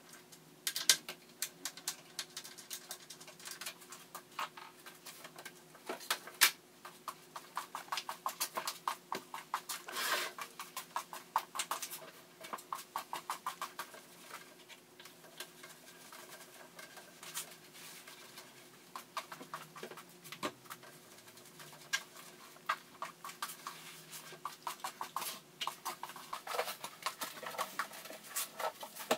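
Small objects being handled and set down on a vanity table top: irregular light clicks, taps and clatter, over a faint steady hum.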